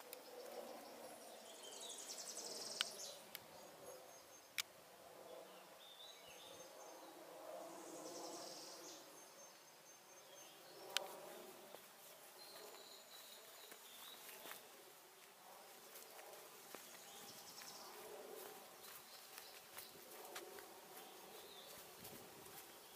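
Faint buzzing of flying insects that swells and fades, with faint high chirps and a few sharp clicks.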